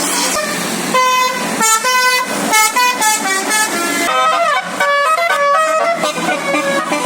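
Indonesian bus 'telolet' multi-tone air horn (Basuri type) playing a tune: a run of short notes that step up and down in pitch several times a second, quicker in the second half.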